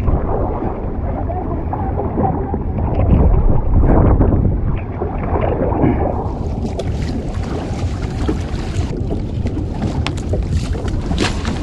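Wind rumbling on the microphone over water sloshing and splashing around a sea kayak in heavy ocean swell. It is loudest about three to four seconds in, and sharper splashy crackles come in over the second half.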